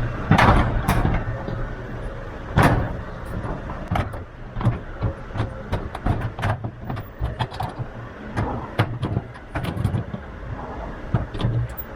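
Irregular metallic clicks and knocks of hand tools tightening the fixing nut on a garage door T-handle lock, the loudest near the start and about two and a half seconds in, over a low steady rumble.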